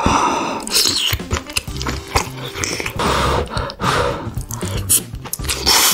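Mouth sounds of eating cheesy corn, chewing and slurping in short irregular bursts, over background music with a repeating bass line.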